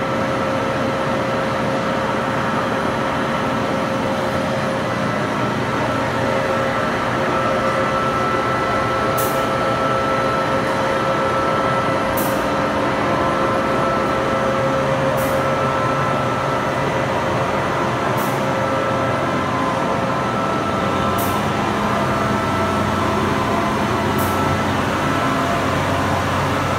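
Poreba TR135 engine lathe running under power: a steady mechanical hum from the machine with a high whine. From about nine seconds in, a light tick repeats every three seconds.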